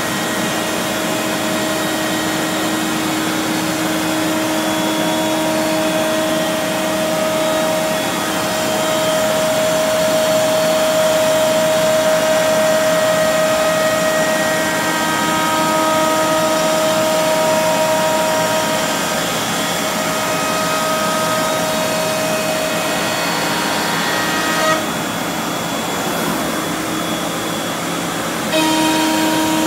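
MultiCam Digital Express CNC router running as it cuts printed sheet material: a steady whine over a constant rush of dust extraction. About 25 s in the whine drops out for a few seconds, then comes back with a small jump in level near the end.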